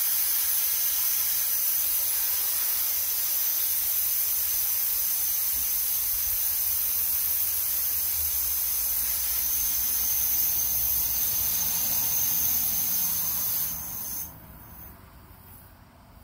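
Compressed air hissing steadily out of a leak in the air line feeding a pneumatic impact gun, a sign that the system is losing a lot of air. The hiss drops away abruptly near the end.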